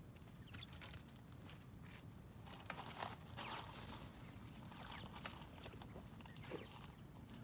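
White quail moving about in dry leaf litter: faint, scattered taps and rustles of feet and pecking, busier after about two and a half seconds.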